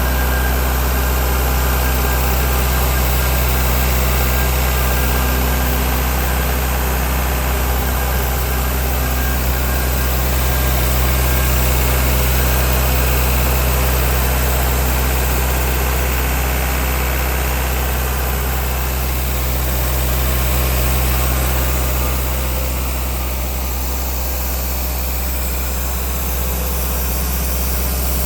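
Atlas Copco XAS 137 mobile air compressor's Deutz diesel engine running steadily, with a strong low hum.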